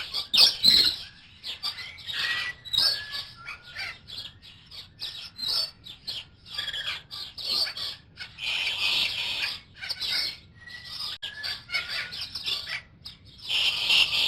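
Many birds chirping and chattering together: dense, overlapping short calls with a few brief whistled glides, swelling and easing in uneven bursts.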